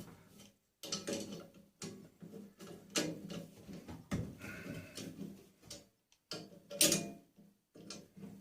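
Hand tools clicking and scraping on the metal parts of a tumble dryer while the fan blade is being worked off, with irregular knocks, a brief squeak about halfway, and a sharp knock about seven seconds in.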